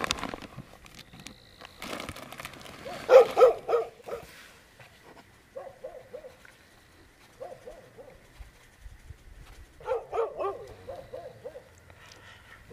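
An animal calls in short runs of quick repeated notes. The runs are loudest about three seconds in and again about ten seconds in, with weaker runs between. A faint steady high tone lies beneath.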